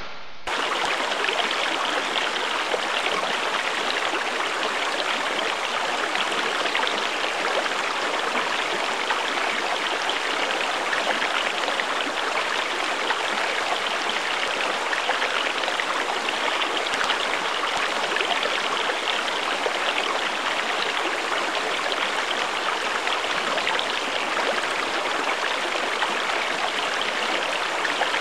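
Flowing water rushing steadily, like a stream or small waterfall. It cuts in suddenly at the very start.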